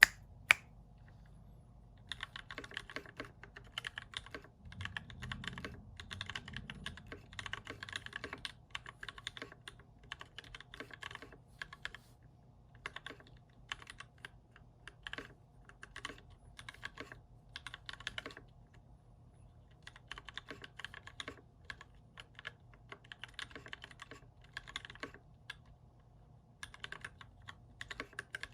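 Typing on a mechanical keyboard with lubed and filmed TTC Red linear switches (Krytox 205g0 on the switches, Kebo films) and blank keycaps. Keystrokes come in quick bursts with short pauses, after a single sharp click about half a second in.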